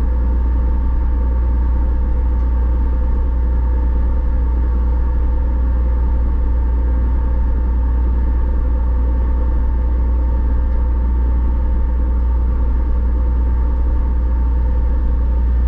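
Engines of the 398-ton car ferry Honjima-maru running under way: a deep, steady rumble with a constant hum on top.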